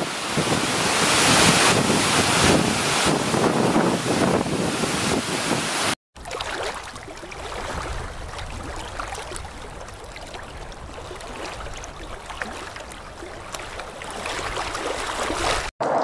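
Skógafoss waterfall, a large river falling over a cliff, giving a loud steady rush of water. It cuts off about six seconds in, and a quieter steady rushing hiss follows with a few faint clicks.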